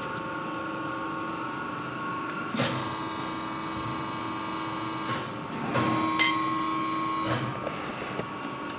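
LVD PPEB CNC press brake running with a steady hum. A few short clicks cut through it, and a louder mechanical whir lasts about a second and a half a little past halfway.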